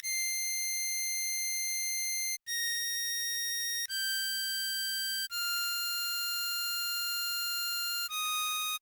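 A 10-hole diatonic harmonica tone plays a slow melody of five long held notes, each lower than the one before, with short breaks between them. The notes are very even and steady.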